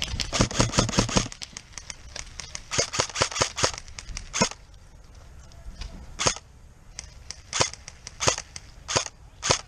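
Airsoft guns firing: a rapid full-auto burst lasting about a second, a second short string around three seconds in, then single shots roughly a second apart.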